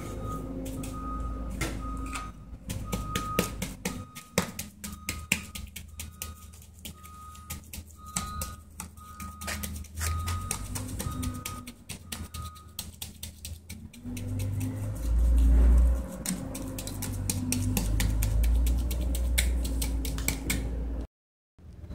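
Wooden hand tamper packing wet concrete down into a steel block mold, a long run of quick, sharp knocks. An intermittent beeping like a vehicle's reversing alarm runs in the background for the first half or so, and a low rumble joins about two-thirds of the way in.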